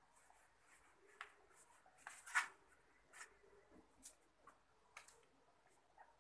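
Faint swishes of an eraser wiping a whiteboard: several short strokes, the loudest about two and a half seconds in.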